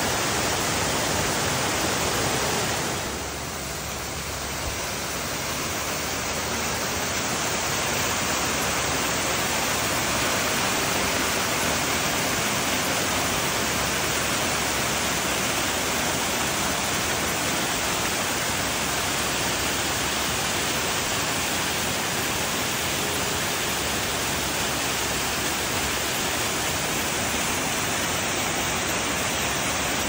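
Yoro Falls, a tall waterfall, making a steady, dense rushing hiss as it plunges onto rocks and runs down rocky cascades. The sound drops a little about three seconds in, then slowly builds back.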